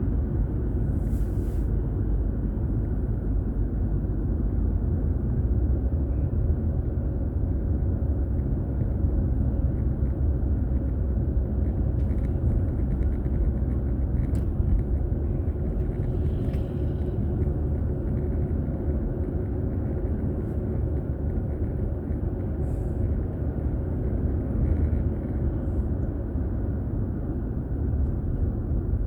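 Steady low rumble of a car's road and engine noise, recorded by a dashboard camera inside the moving car, with a few faint brief ticks.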